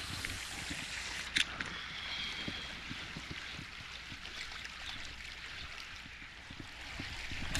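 Small waves lapping and gurgling at the water's edge, a soft steady wash. A single sharp click about a second and a half in.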